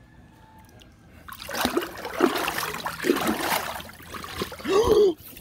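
Water splashing and sloshing in a small plastic paddling pool as dogs wade and scramble about in it, starting about a second in. A short vocal cry comes near the end.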